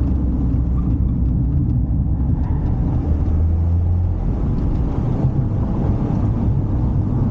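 Toyota GR Yaris on the move, its 1.6-litre turbocharged three-cylinder engine and road noise making a steady low rumble. The engine note swells briefly about three seconds in.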